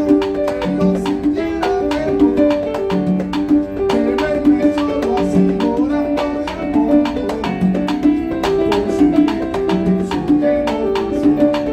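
Live salsa band playing an instrumental passage: a repeating piano figure over hand-drum percussion.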